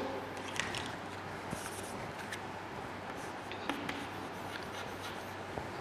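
Chalk writing on a chalkboard: faint scratching with a few small, scattered ticks, over a low steady hum.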